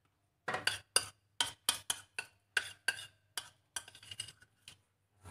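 A spoon scraping and knocking against plastic bowls while sambal matah is scooped from a mixing bowl into a small dish: a quick, uneven run of about a dozen sharp clinks and scrapes, with one more at the end.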